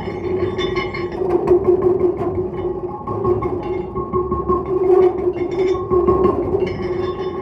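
Two serpentine stone plates resting on a bass drum, worked with another material so that they sound a steady, sustained ringing tone with a higher overtone above it, over a running texture of small scratches and clicks.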